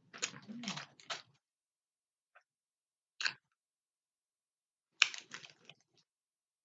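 Close-up eating sounds: bursts of chewing and mouth clicks, one cluster in the first second or so, a single click about three seconds in, and another cluster around five seconds in.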